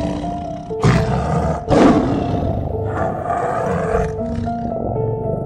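A tiger roaring three times, each a rough call of about a second, the second the loudest, over background music with held notes.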